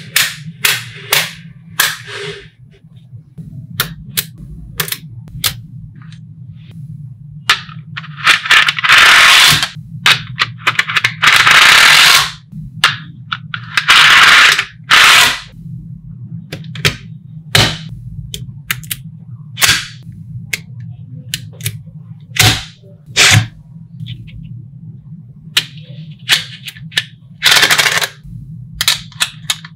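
Small magnetic balls clicking and snapping together one after another, with several longer rattling clatters of many balls at once.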